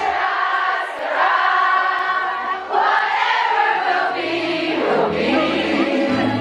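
Many voices singing together over music, sounding like a choir.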